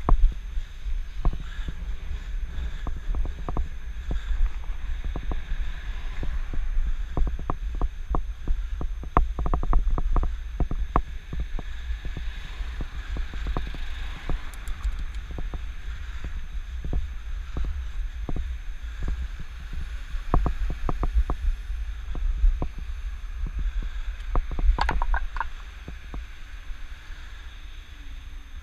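Riding noise picked up by a helmet-mounted GoPro on a moving bicycle: a steady low rumble of wind and road, with frequent sharp clicks and rattles. Near the end there is a brief high ringing sound.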